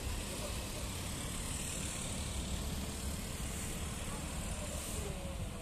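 Steady, distant jet engine noise from a Boeing 737-800's CFM56-7B turbofans as the airliner rolls along the runway: a low rumble with a high hiss.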